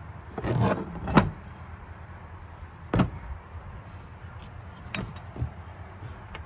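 Cast aluminium engine mounts being handled, knocking and clicking against each other and the surface: a rustle of handling near the start, a sharp knock about a second in, another about three seconds in, and fainter clicks later.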